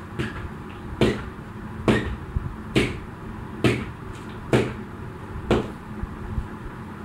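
Jump rope slapping the floor once per turn, a sharp strike about every second, seven in all, over a steady background hum.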